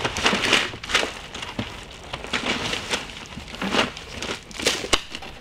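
Plastic wrapping and cardboard rustling and crinkling in irregular bursts, with light clicks and knocks, as shrink-wrapped bundles of arrow shafts are dug out of a cardboard box.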